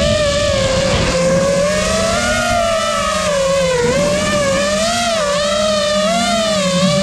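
FPV quadcopter's electric motors and propellers whining loudly, heard from the drone's own camera. The pitch wavers up and down with the throttle and dips briefly a few times.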